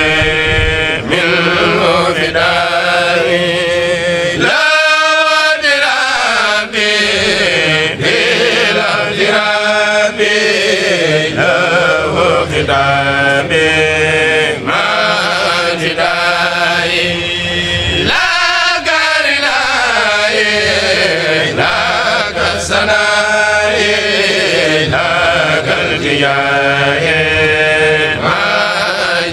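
Kourel group of Mouride singers chanting an Arabic khassida in long, melodic lines, with drawn-out gliding notes at a few points.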